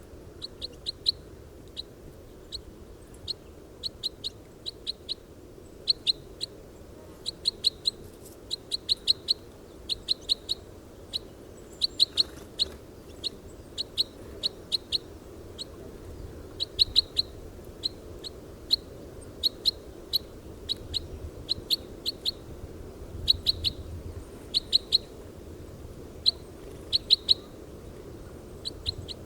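Red crossbill (common crossbill) giving sharp, high 'kip' calls in quick runs of two to five, repeated every second or two.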